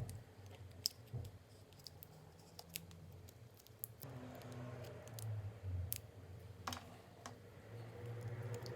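Scattered small, sharp clicks and light scrapes of hand tools and small parts being handled while working on a phone's casing and battery.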